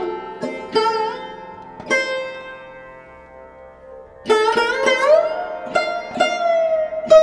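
Background music on a plucked string instrument: struck notes that ring and fade, some bending in pitch. One long note dies away in the middle, then a loud new phrase starts about four seconds in.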